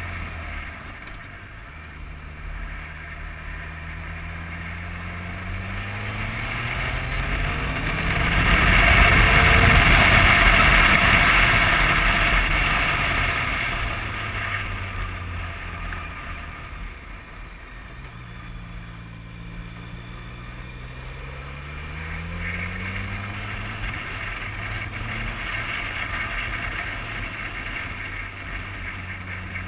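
BMW motorcycle engine pulling uphill, its note rising twice as the bike accelerates out of bends. Near the middle a loud rush of wind noise covers the engine for several seconds.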